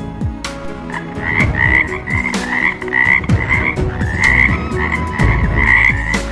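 Frogs croaking: a steady run of short repeated calls, about three a second, beginning about a second in, with lower croaks beneath.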